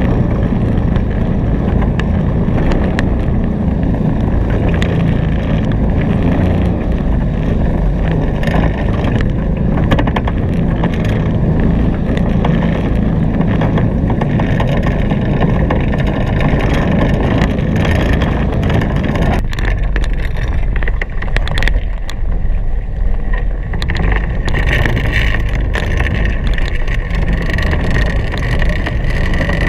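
Wind blowing hard across the microphone over the rush of water along the hulls of a Hobie Cat 16 catamaran sailing fast. The lower part of the rush thins out about twenty seconds in.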